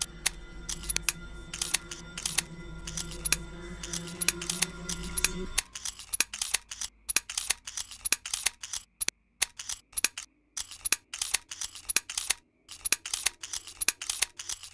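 Typewriter-style typing sound effect: quick, irregular key clicks as on-screen text is typed out letter by letter. Under the clicks a low steady drone stops about five and a half seconds in, leaving only the clicks.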